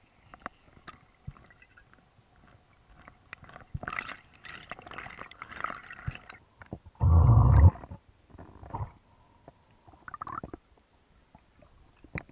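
Sound heard underwater: a scatter of small clicks and crackles throughout, water swishes a third of the way in, and a loud low rush lasting under a second a little past halfway.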